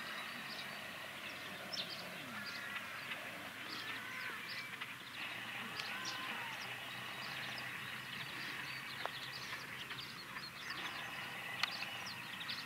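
Faint outdoor birdsong: many short chirps and a few gliding calls scattered throughout, over a steady hush of open-air background noise.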